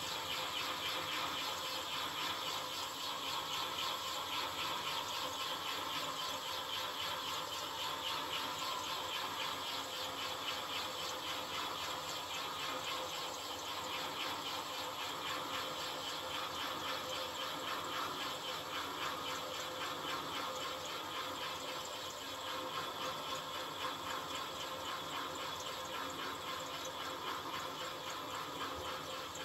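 Metal lathe running steadily while a parting tool in a rear tool post cuts through cast iron bar, parting off a cylinder cover without chatter.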